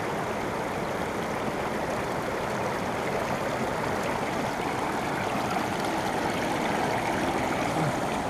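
River water rushing steadily over a rocky riffle and around boulders.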